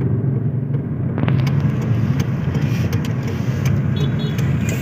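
Car engine and road noise heard from inside the cabin while driving slowly: a steady low rumble. From about a second in, brighter outside street noise with scattered clicks joins it.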